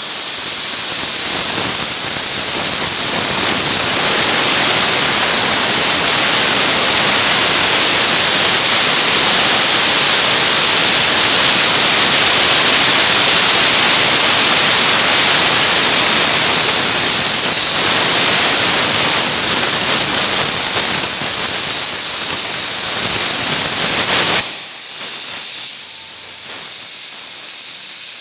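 CNC cutting torch hissing steadily while cutting through 10 mm steel plate. Near the end the fuller, lower part of the hiss cuts off suddenly, leaving a thinner high hiss.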